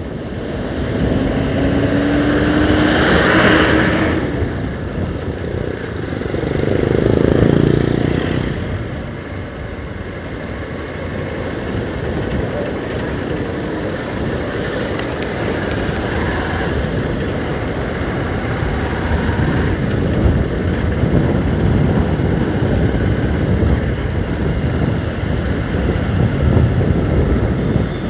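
Motorcycle riding along a road, its engine running under steady rushing wind noise on the microphone. A rising tone in the first few seconds is followed by louder swells about three seconds in and again around seven seconds.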